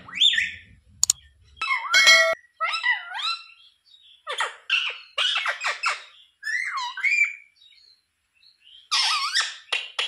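A rose-ringed parakeet (Indian ringneck) gives bouts of chattering, bending call notes with short pauses between them. Its loudest call is a sharp screech about two seconds in.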